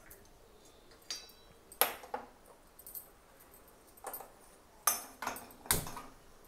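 Metal clinks and knocks of an empty metal kadai being set down and shifted on a gas stove's burner grate, about eight in all. One about a second in rings briefly, and the loudest knocks fall near two, five and six seconds in.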